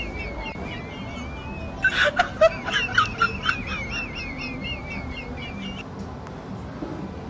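A high-pitched warbling sound, most likely a sound effect laid over the scene, wavering quickly up and down. It breaks off for a moment about two seconds in with a few clicks, then goes on until it stops shortly before the end.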